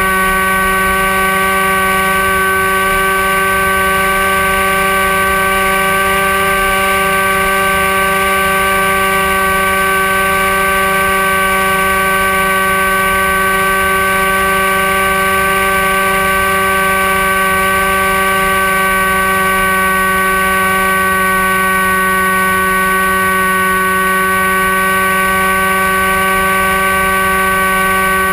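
Brushless electric motor and propeller of a Dynam Hawk Sky RC glider, heard from its onboard camera, whining at a nearly constant pitch under steady throttle. Wind buffets the microphone underneath as a fluttering low rumble.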